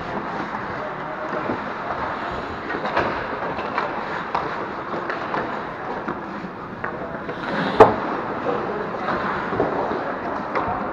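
Ice hockey play on a rink: skates scraping the ice with sticks and puck clacking, and one loud sharp crack of an impact about eight seconds in.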